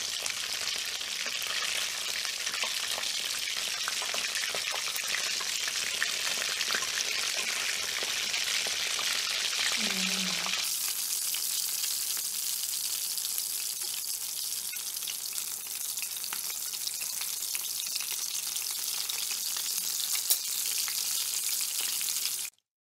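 Chicken drumsticks deep-frying in hot oil: a steady sizzle with fine crackling, stopping abruptly near the end.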